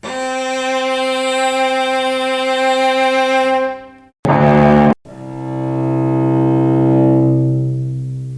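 Cello played with the bow, three separate notes. A higher note is held for about four seconds and fades out. A short, loud note is cut off abruptly. Then a lower note swells and slowly fades.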